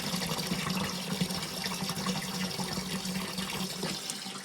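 Water rushing out of an opened valve on a hydronic boiler system as the boiler pressure and the water in the section are drained down. The flow eases off about four seconds in.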